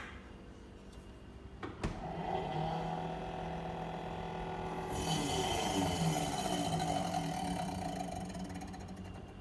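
Faulty refrigerator motor starting up: a couple of clicks, then about two seconds in a steady droning hum begins. About five seconds in a harsher, hissing noise joins the hum, and the sound eases off near the end.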